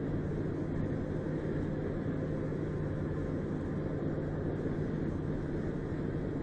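Steady road and engine noise inside a car's cabin at freeway speed: an even rumble of tyres and engine with a constant low hum.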